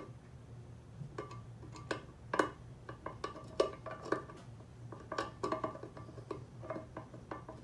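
Hand screwdriver working the screw of a nonstick frying pan's loose handle: irregular small metallic clicks and ticks, several a second, each ringing briefly in the pan. The screw will not tighten, which the owner puts down to stripped or jumped threads.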